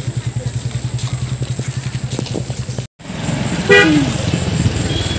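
An engine running with a fast, even low pulse, which cuts off suddenly a little under three seconds in; after the cut comes a short, pitched toot that falls in pitch.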